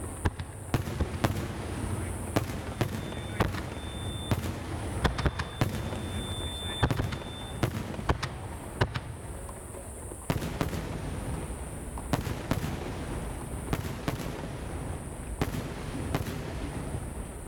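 Aerial firework shells bursting in the sky: an irregular series of sharp bangs, about one or two a second, over a steady low rumble.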